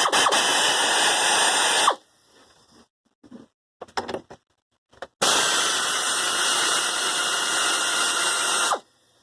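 Handheld power drill running in two bursts, one of about two seconds and a longer one of about three and a half seconds, with a few short knocks between. It is driving out the bolts as a Peerless transaxle is taken apart.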